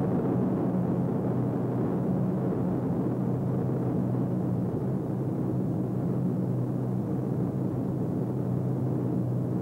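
Lockheed P-38 Lightning's twin Allison V-12 piston engines droning steadily in flight, a low even hum that holds one pitch throughout.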